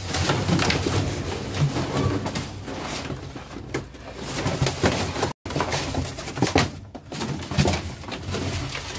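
Cardboard boxes being lifted, shifted and rustled in a metal dumpster, with scrapes and knocks, over a low repeated cooing. The sound cuts out for an instant a little past halfway.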